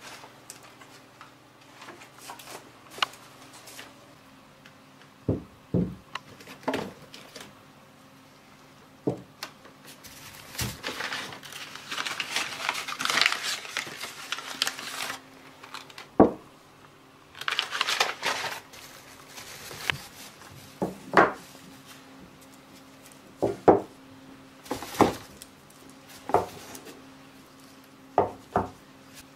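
TNT blocks and hand grenades being unpacked from a cardboard box and set down one at a time on a table, each with a sharp knock, with plastic wrapping crinkling as it is handled in two stretches. A faint steady hum runs underneath.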